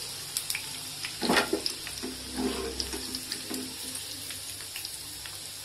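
Batter-coated paneer pieces frying in hot oil: a steady sizzle with small crackles. There are a few knocks of a steel slotted spoon lifting pieces out of the pan, the clearest about a second in.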